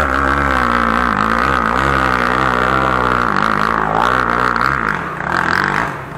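Enduro dirt bike engine revving hard, its pitch rising and falling with the throttle as the bike climbs a steep slope under load. The sound drops back and gets rougher after about four seconds.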